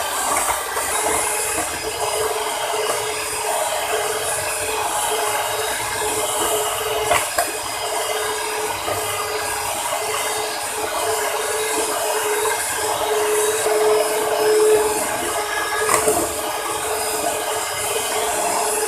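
Electric hand mixer running steadily, its beaters whipping eggs, sugar and cake emulsifier in a plastic bowl until the batter is pale and fluffy. A steady motor whine carries on throughout, with a few sharp clicks.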